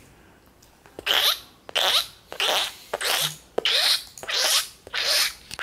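A person makes short, squeaky, hissing calls again and again, about one every 0.6 s, to lure a cat down.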